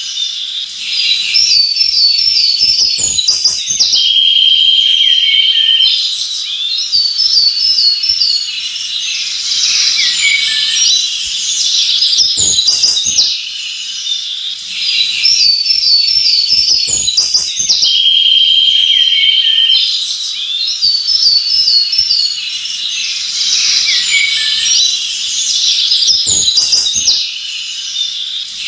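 Several forest birds singing and chirping together, with quick high chirps and whistled phrases and a sustained buzzy trill that comes twice. The same stretch of birdsong repeats about every fourteen seconds, as a loop.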